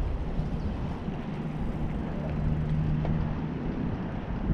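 Wind buffeting the microphone and road rumble on a moving bicycle, a steady low rushing noise, with a low steady hum for a couple of seconds in the middle.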